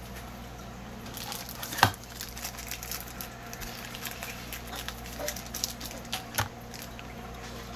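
Trading cards and their plastic packaging being handled: light crinkling and scattered clicks, with a sharp tap about two seconds in and another past the six-second mark, over a steady low hum.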